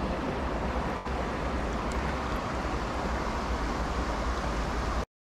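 Steady rush of flowing river water, with low wind rumble on the microphone. It cuts out for a moment near the end.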